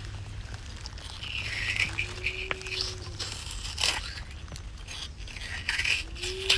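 Metal melon-baller scoop carving balls out of a raw beetroot: two wet scraping passes through the dense flesh, each followed by a low squeak lasting about a second as the scoop turns.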